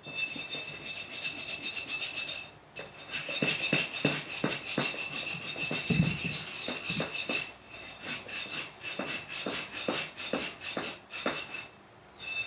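Rusted metal being scraped or filed by hand in quick, repeated back-and-forth strokes, with brief pauses between runs, as rust is worked off the surface.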